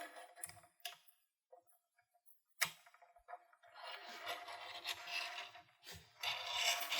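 A guard being slid onto a Harvey RF-36-I aluminium router fence: a few sharp clicks, then scraping as it slides along the fence, twice.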